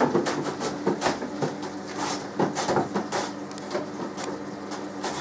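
Salad onion sliced on a plastic handheld vegetable slicer: the onion pushed back and forth across the blade in quick repeated strokes, about two or three a second, each a crisp scraping cut, fewer toward the end.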